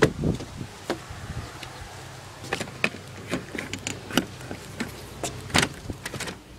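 Scattered light clicks and knocks, a dozen or so spread irregularly, over a faint steady low hum, as of objects being handled close to the microphone.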